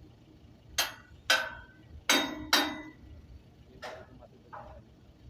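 Sharp metallic knocks, like a hammer striking metal: four loud blows in the first three seconds, the third ringing briefly, then a few fainter knocks.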